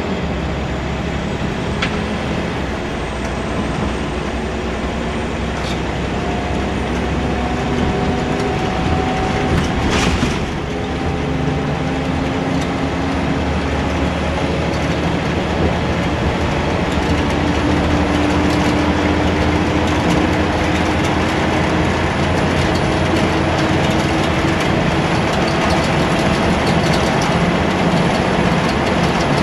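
Scania L94UB bus heard from inside the saloon while under way: steady engine and road noise with body rattles, the engine note climbing slowly and dropping back several times as it pulls through the gears. A sharp click about ten seconds in.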